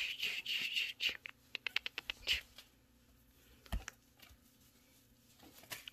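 Rustling and scratching of a feather wand toy being swished while kittens scrabble and pounce after it, with a run of quick clicks about two seconds in. It then goes quieter, with a single soft thump near the middle.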